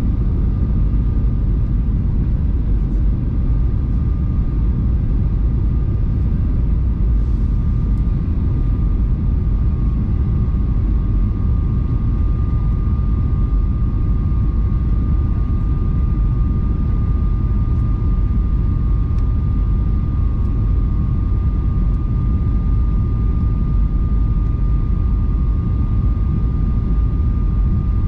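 Jet airliner cabin noise on approach: a steady low roar from the engines and airflow over the fuselage, with a steady high whine from the engines above it.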